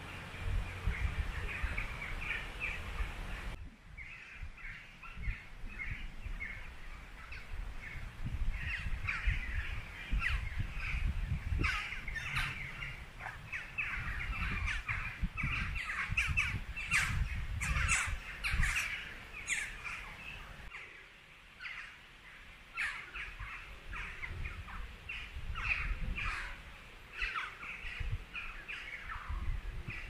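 Crow-like birds cawing over and over, many short harsh calls overlapping, busiest in the middle, with a low rumble underneath that comes and goes.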